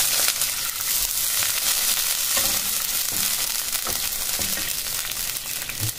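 Hot oil in a wok sizzling hard just after water has been poured onto the fried chillies and garlic, a steady hiss, with a spatula stirring through it.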